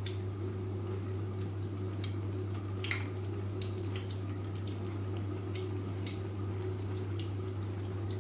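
Batter-coated chicken pieces deep-frying in hot ghee in a wok: a soft sizzle with scattered sharp crackles and pops, over a steady low hum.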